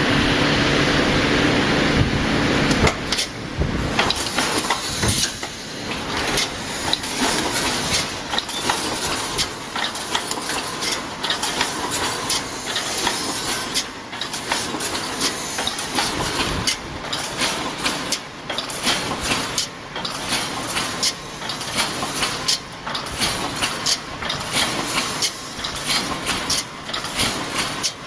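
Welded wire mesh welding machine running. A steady motor hum gives way after about three seconds to repeated sharp clicks and clanks, roughly one or two a second, over a hiss.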